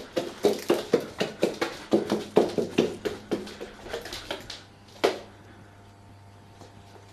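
White domestic duck quacking in a quick run of short quacks, about three or four a second, that trails off after about four and a half seconds. A single sharp sound follows about five seconds in.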